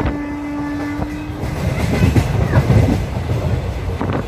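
Passenger train running on the rails, with low rumbling and wheel clatter. A long held horn-like note ends about one and a half seconds in, and a sharp clack comes near the end.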